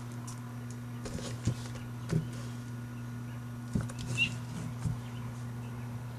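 A few soft knocks and light rustles, about five in all, over a steady low electrical hum.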